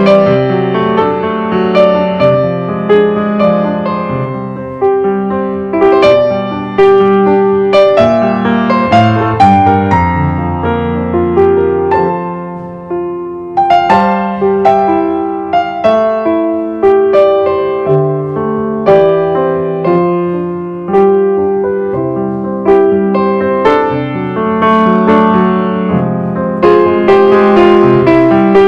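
Background piano music: notes struck and left to ring, a melody over held chords.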